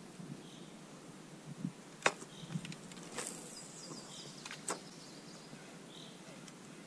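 A few sharp knocks and clicks, the loudest about two seconds in, over a faint steady background hiss.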